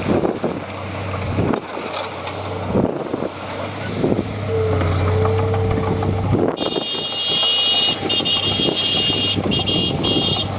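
Diesel engine of heavy earthmoving machinery running steadily under scattered metallic knocks and clanks. About two-thirds of the way in, a high-pitched squeal starts and stops in short stretches.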